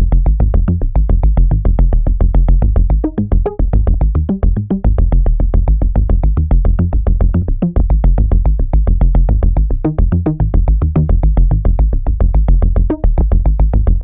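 Omnisphere "Technode ARP" synthesizer patch, built on a Classic Rhodes Amp electric-piano sample, played from a keyboard: a rapid arpeggio of short, evenly repeating notes over a heavy bass. It stops at the very end.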